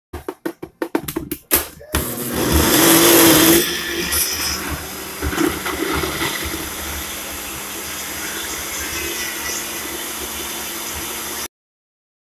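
Personal bullet-style blender blending a green smoothie of kale, frozen mango and pineapple, and coconut water. It starts with several short bursts, then runs continuously, loudest in its first second or so. It settles to a steadier sound as the contents break down, then stops abruptly near the end.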